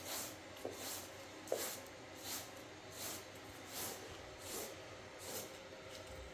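Small knife peeling and cutting a tomato by hand, a soft rasping stroke about every three-quarters of a second, with two light clinks in the first couple of seconds.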